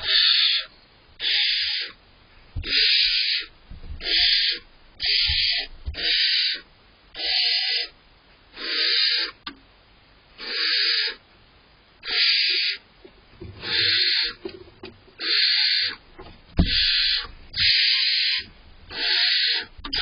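Barn owl owlets giving harsh hissing begging calls, about one a second, each about half a second long.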